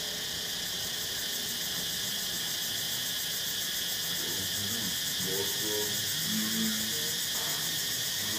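Steady, high-pitched insect chorus of the tropical forest, with faint voice-like sounds in the middle.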